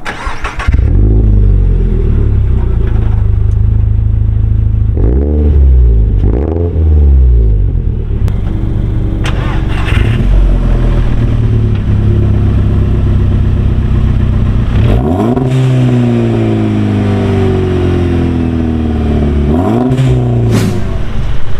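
Exhaust of a Toyota GR86's 2.4-litre flat-four and then a Mk6 VW Golf GTI's turbocharged 2.0-litre four with an aftermarket downpipe, heard at the tailpipe. Each idles and is given throttle revs that climb and fall back, twice about five to seven seconds in and again near fifteen and twenty seconds.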